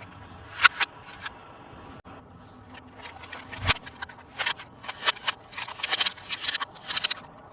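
Crinkling and rustling of toy packaging being handled and opened, in short crackly bursts that come thick and fast in the second half.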